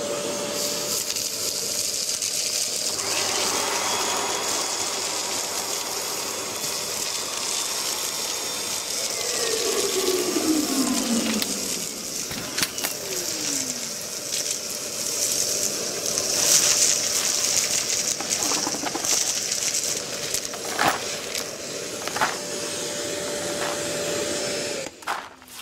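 Kärcher multi-purpose vacuum cleaner motor spinning up, running steadily for over twenty seconds while it sucks up dust, shingle and stones with occasional sharp clicks of debris, then switching off near the end. Two falling whistle-like glides sound around the middle.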